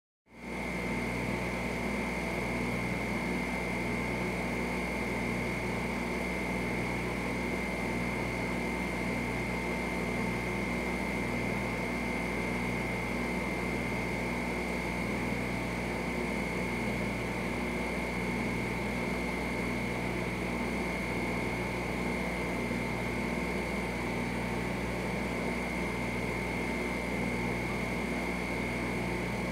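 Steady mechanical hum of aquarium equipment, with a constant high whine over it and a low throb that pulses slowly and evenly.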